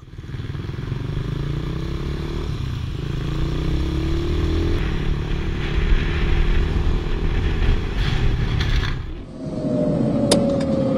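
Motorcycle engine running while riding, its pitch wavering up and down with throttle, over wind and road noise. About nine seconds in it gives way to a car under way, with a slowly falling whine and one sharp click.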